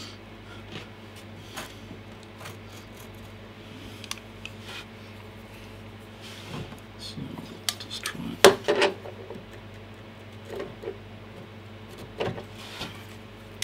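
Screwdriver working the cover screws out of an HP 1650A logic analyzer's metal case: scattered light metallic clicks and scrapes, with a louder clatter about eight and a half seconds in.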